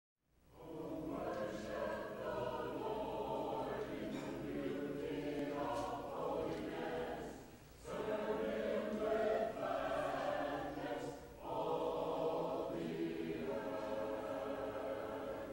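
A church congregation singing together, a sung phrase at a time with short breaks between phrases about halfway through and again a few seconds later.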